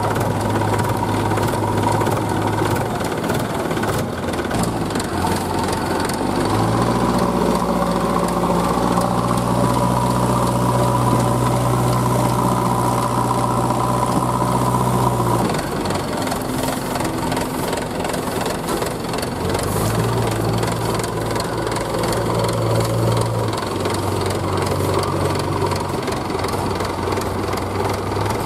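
Diesel engines of a JCB backhoe loader and a Mahindra 475 DI tractor running under load, working to free a mired, fully loaded trailer. The engine note rises for about nine seconds, drops back suddenly, then rises again for a few seconds near the end.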